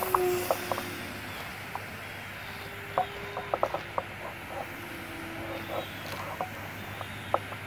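Thin whine of a small foamboard RC airplane's electric motor and propeller, holding a steady pitch that shifts a little as it flies, with scattered light clicks and crackles, several close together about three to four seconds in.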